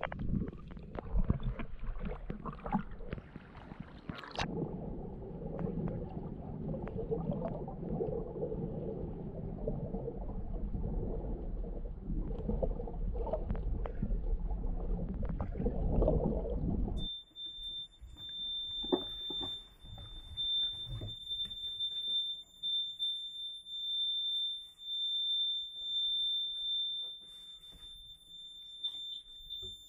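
Muffled underwater water noise with irregular knocks from a camera held underwater; about halfway through it cuts to a continuous high-pitched electronic alarm tone on the boat. The owners suspect the tone is the high-water alarm faulting, since there is no water in the bilge.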